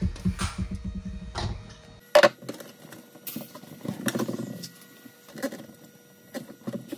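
Cordless drill-driver running in quick pulses, driving a screw into the wall to fix a pipe clip, stopping about two seconds in. Then a sharp click and scattered light clicks and rubbing as the copper pipe is handled and pressed into its clips.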